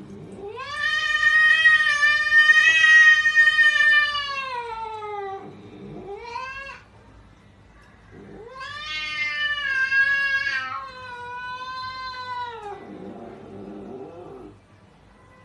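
A cat yowling: one long drawn-out call of about five seconds that falls in pitch at its end, a short rising call, then a second long call of about four seconds, ending in a lower, rougher sound near the end.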